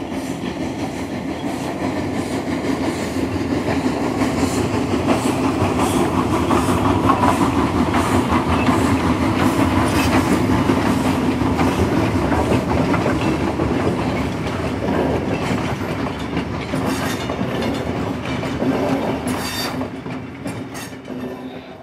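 O-gauge model trains running on three-rail track: a steady rumble of wheels and motors with clickety-clack over the rail joints, fading away at the end.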